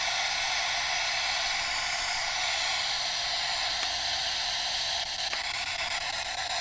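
SB7 spirit box sweeping the FM band, giving out a steady hiss of radio static with a few faint clicks and no station audio, its signal shut out by a homemade wire-mesh and aluminum-tape Faraday cage.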